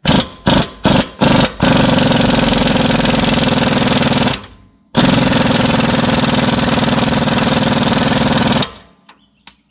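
Pneumatic wrench loosening the 21 mm bottom bolt of a rear air strut: five short blips, then two long runs of about two and a half and four seconds with a brief pause between.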